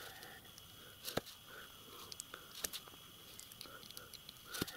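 Light clicks and taps of metal on metal as a small metal tool-post block is handled and checked with a hand measuring tool. Sharper clicks come about a second in and again near the end.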